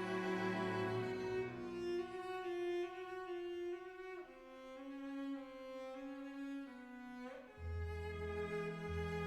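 Background music of bowed strings playing slow held notes, with a deep bass coming in near the end.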